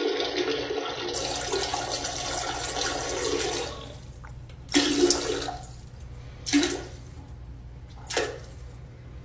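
Toilet flushing: a loud rush of water that dies down after about four seconds, followed by three short, separate surges of water noise.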